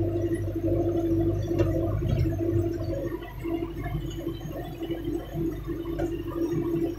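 John Deere tractor running steadily under load, pulling a planter, heard inside the cab as a steady drone with one constant tone and a low rumble that eases slightly about three seconds in.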